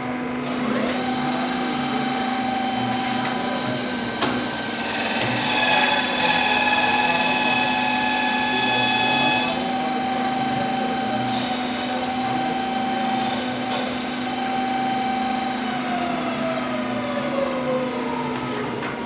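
CNC machine machining a ceiling fan rotor: a steady high whine comes in about a second in, grows fuller and louder in the middle while it cuts, then slides down in pitch near the end as the spindle slows. A sharp click sounds about four seconds in.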